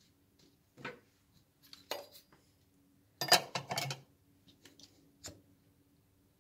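A metal spoon knocking and clinking against the plastic bowl of a mini chopper while a plastic mustard squeeze bottle is handled. A few scattered clicks, with a louder cluster of knocks a little past the middle.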